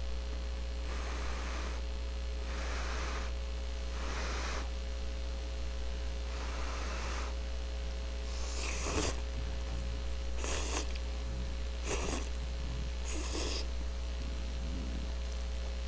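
A man slurping cup ramen noodles and breathing hard through his nose as he eats: soft breathy sounds about every second and a half, then four sharper slurps in the second half, over a steady electrical hum.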